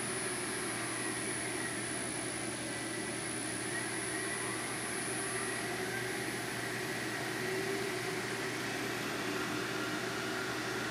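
Manford 200VS milling machine's variable-speed head running steadily on its inverter drive: an even mechanical hum with thin, high, steady whines over it.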